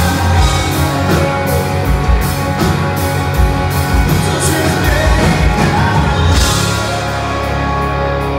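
Live rock band playing at full volume: electric guitars, electric bass and drum kit. The steady drumbeat drops out about six seconds in, leaving sustained chords ringing.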